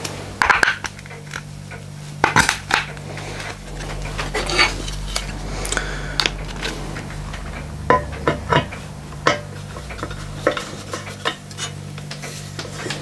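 A metal axle pin clicking and scraping as it is pushed through the hub of a plastic bandsaw wheel into the cast frame, with irregular clinks and knocks. Near the end, a screwdriver turns the pin into its threaded hole. A low steady hum runs underneath.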